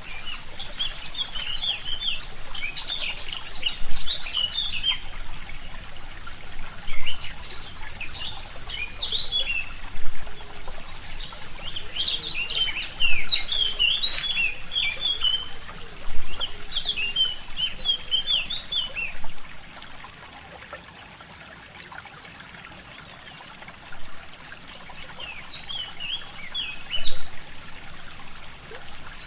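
Forest birds singing in bursts of quick chirping phrases over a steadily trickling stream, with a few sharp clicks as the loudest moments. The water sound dips quieter for a few seconds past the middle.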